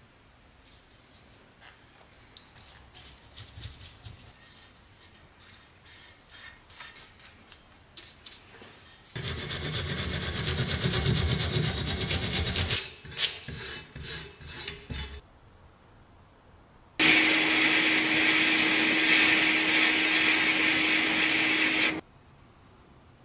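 A paintbrush dabs and scrapes faintly on cast iron, then a hand wire brush scrubs rapidly and loudly over the stripper-coated cast-iron body of an antique grater. Later comes about five seconds of loud, steady machine noise with a low hum, which cuts off suddenly.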